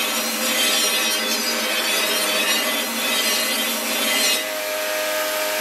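Belt grinder running with a steel sword blade pressed against the abrasive belt: a steady grinding hiss over the belt's running tone. Near the end the grinding hiss drops off, leaving the belt's steady hum.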